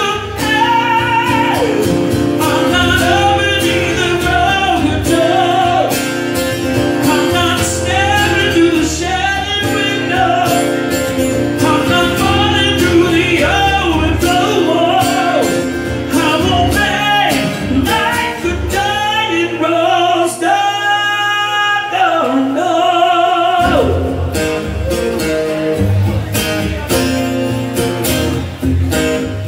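Live solo acoustic performance: a male singer sings a ballad while strumming an acoustic guitar. About twenty seconds in he holds one long note as the guitar drops out, then the strumming comes back in and carries on toward the end.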